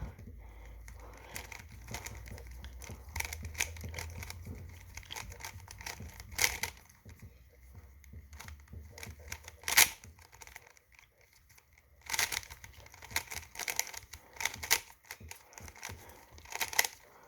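A GAN 356M magnetic speed cube, unlubricated, clacking and clicking in rapid irregular runs as its faces are turned quickly during a timed speedsolve. There is a short lull about ten seconds in.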